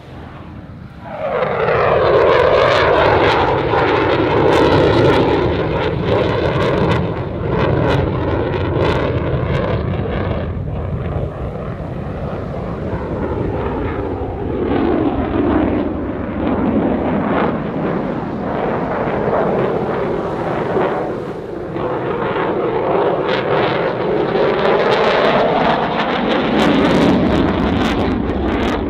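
RAF Eurofighter Typhoon's twin Eurojet EJ200 jet engines in afterburner during a display pass. The jet noise comes in suddenly about a second in and stays loud, crackling, with a sweeping, phasing whoosh that dips and rises twice as the jet manoeuvres.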